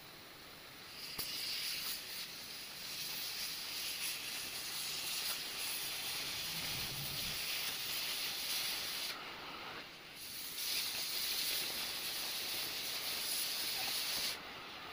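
Steady hissing that starts about a second in, stops for about a second around nine seconds in, then resumes until near the end.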